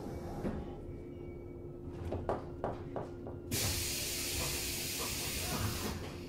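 Inside a 185 series electric train standing quietly: a steady electrical hum and low rumble, a few sharp knocks about two seconds in, then a loud hiss of compressed air from about three and a half seconds in until near the end.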